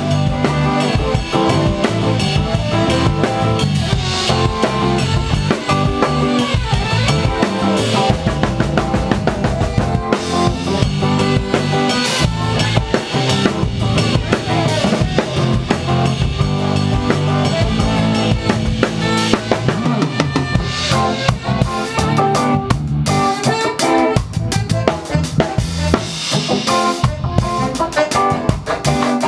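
Live band playing an instrumental reggae section, with drum kit (kick, snare rimshots, cymbals) loudest and up close over bass and electric guitars.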